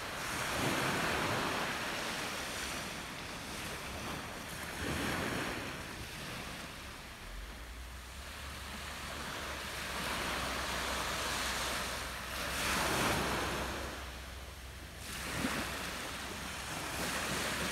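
Small sea waves breaking and washing up a pebble beach, the surf hiss swelling and fading every few seconds as each wave comes in and draws back.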